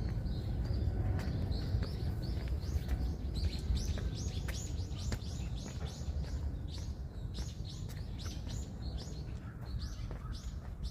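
A songbird chirping: a quick run of short, high, falling notes, a few a second, over a steady low rumble with occasional clicks.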